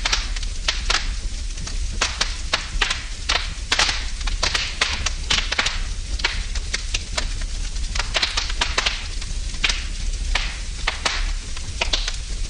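Wood fire burning in a fireplace, crackling and popping in quick, irregular snaps over a low rumble of flame.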